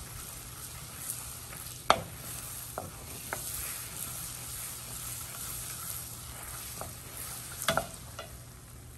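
Butter-and-flour roux sizzling and bubbling in a pot while a wooden spoon stirs it, with a few sharp knocks, the loudest about two seconds in.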